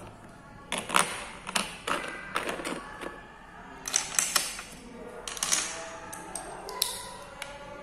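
Plastic Lego bricks clicking and clattering as they are picked from a loose pile and snapped together, a run of irregular sharp clicks in small clusters.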